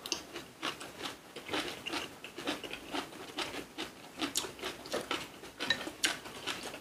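Close-up chewing of crisp napa cabbage with raw fish: a run of short, irregular crunching bites, a few a second.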